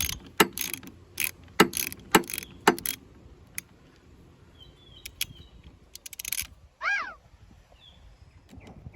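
Sharp metallic clicks of a hand wrench working the 10 mm nut on a car battery's negative terminal clamp, about six in the first three seconds and a few more later. A short, high chirp sounds near the end.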